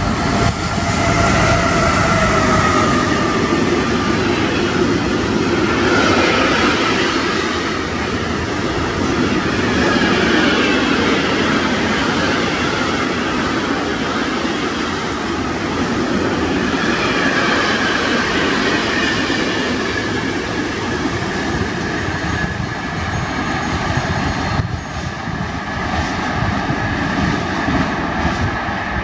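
Freight train passing close, hauled by two Siemens Vectron electric locomotives: a few steady whining tones in the first seconds, then the continuous rumble and rail clatter of container and tank-container wagons rolling by.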